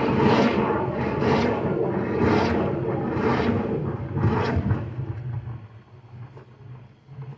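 Drain-cleaning machine running as its line works inside a blocked drain pipe, with a rasping scrape about once a second. It stops about five and a half seconds in.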